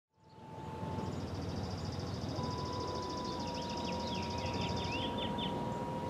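Outdoor ambience: birds chirping, with a fast high trill and a run of quick falling chirps over a low rumble. A faint steady tone runs underneath from about midway.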